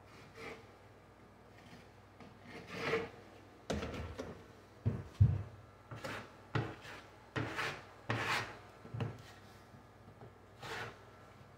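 Drywall taping knife scraping joint compound across a drywall patch in a string of short strokes, with a dull thump about five seconds in.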